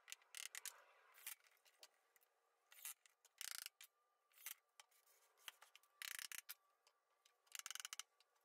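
Near silence, broken by faint, short scratchy noises every second or so, some of them in quick little runs.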